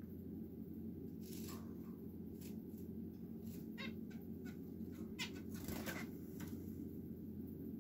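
Small cage finches, zebra finches and society finches, giving a scattering of short calls, about seven over several seconds, over a steady low hum.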